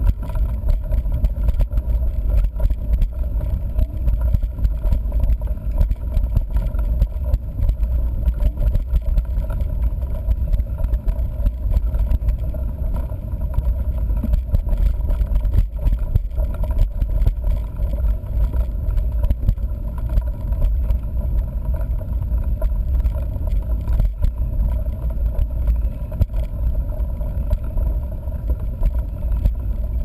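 Wind rumble buffeting a bike-mounted action camera's microphone as a mountain bike rolls over a dirt road, with constant small rattles and knocks from the bumpy ride.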